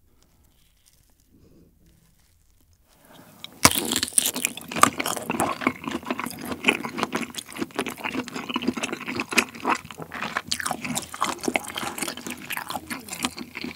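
Close-miked bite into a kielbasa sausage: a sharp snap about three and a half seconds in, after near silence, then continuous chewing of the sausage, full of small clicks and smacks.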